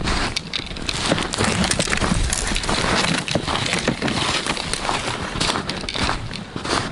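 Footsteps crunching through snow with the rustle of winter clothing and gear, a dense irregular crackle.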